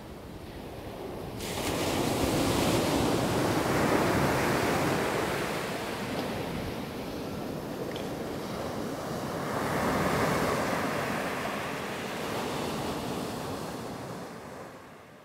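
Ocean surf breaking on a sandy beach and washing up the shore, swelling loudest twice, about two and ten seconds in, then fading away near the end.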